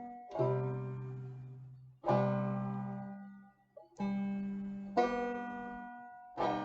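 Slow chords strummed on a plucked-string instrument, each left to ring out and fade before the next, about five in all.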